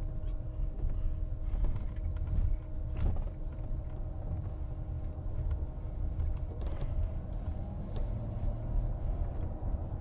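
Low road and tyre rumble inside the cabin of a Chrysler Pacifica minivan driving along, with a faint steady hum and a couple of light clicks, one about three seconds in and one near seven seconds.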